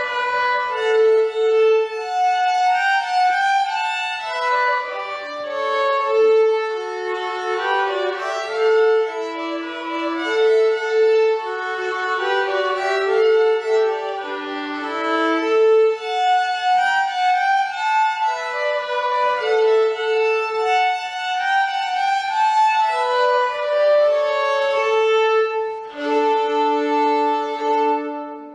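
Two violins playing a traditional tune as a duet, one carrying the melody over a lower second part, in quick running notes.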